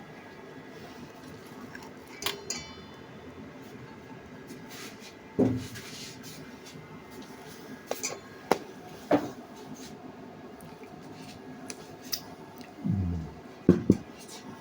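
Eating utensils clinking and tapping against dishes: about a dozen sharp, scattered knocks and clicks, a few louder than the rest, over a faint steady hum.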